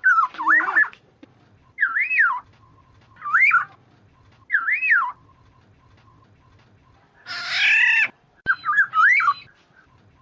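Black-naped oriole (kepudang) calls played as a bird lure: short fluty whistled phrases that swoop up and down, repeated every second or so. About three-quarters through comes one harsher, nasal call, and then two more whistled phrases.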